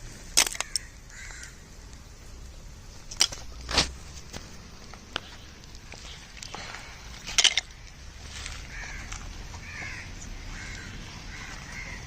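Crows cawing again and again in the background, with a few sharp knocks and clacks of hard objects near the start, around three to four seconds in, and again about seven seconds in.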